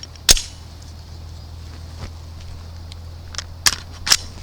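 Sharp clicks and clacks of a Glock 17 Gen 4 pistol being field-stripped, its slide worked and taken off the frame. The loudest click comes about a third of a second in, a faint one about halfway, and two close together near the end, over a steady low hum.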